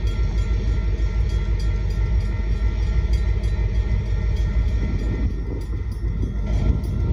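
Union Pacific hopper car train rolling past: a steady rumble of freight car wheels on the rails.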